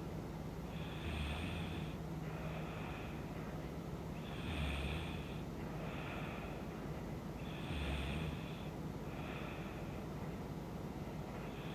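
A woman snoring in her sleep, breathing in a slow, even rhythm: four louder snores with a low rumble, each followed by a softer breath, about one breath every three seconds.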